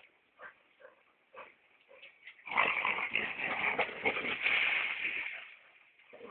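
A chocolate Labrador crashing into a bush, a dense rustling and crackling of leaves and twigs for about three seconds, starting a little past two seconds in. A few short dog sounds come before it.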